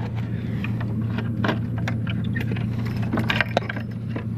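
A vehicle engine running steadily at idle, with scattered light clicks and rattles over it.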